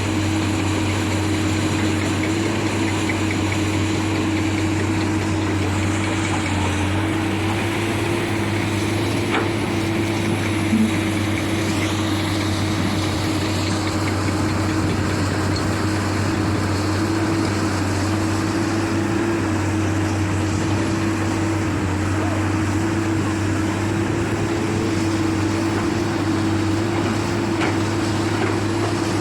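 Heavy diesel engine of earthmoving equipment running at a steady speed, a constant unchanging drone.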